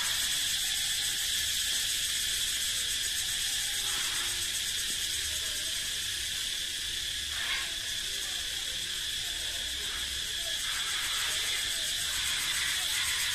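Cicadas calling in the tree canopy: a steady, continuous high-pitched buzzing drone that holds without break.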